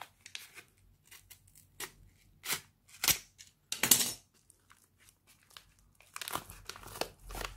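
Padded mailer envelope being handled and torn open: separate short rustles and rips of paper and plastic, the loudest about three and four seconds in, then quicker crinkling near the end.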